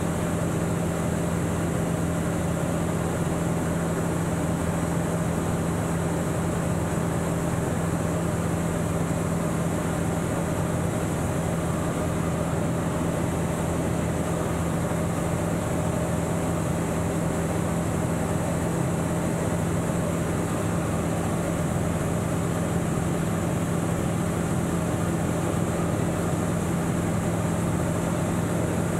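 Light single-engine aircraft's engine and propeller running steadily in cruise, heard inside the cockpit as an even low hum over airflow hiss.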